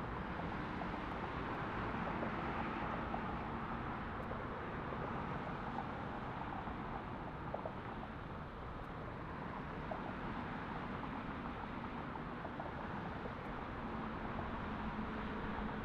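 Distant jet engine noise from a twin-engine Airbus A330-300 on its takeoff roll at takeoff thrust: a steady roar and hiss that swells slightly near the end.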